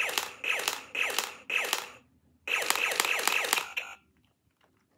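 Toy Nerf blaster's electronic firing sound effect playing from its speaker: short falling zap tones, four about half a second apart, then after a brief pause a quicker run of five or so more.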